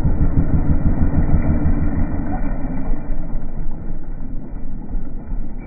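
Dirt bike being ridden on a trail, heard as a loud, muffled low rumble of engine and wind noise with no clear pitch; it eases off a little about halfway through.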